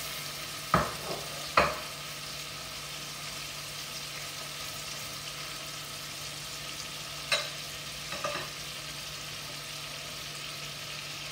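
Marinated chicken pieces frying in hot coconut oil and butter in a pan, a steady sizzle, as the pieces are turned over. A few sharp clicks stand out above it: two about a second in and two more around seven to eight seconds in.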